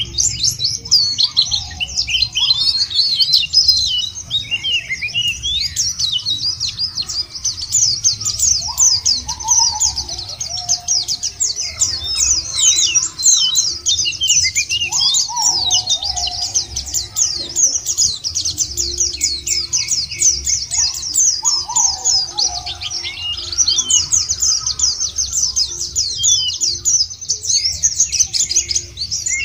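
White-eye (pleci) song: a fast, unbroken stream of high chirps and trills. A lower, falling call comes in three times, about six seconds apart.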